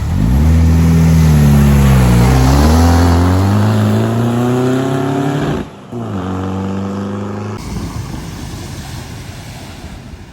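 Car engine revving hard as the car drives through a flooded ford, over a hiss of water spray; its pitch dips about two seconds in, then climbs. After a sudden break the engine runs steadily at a lower level before giving way to a noisy rush.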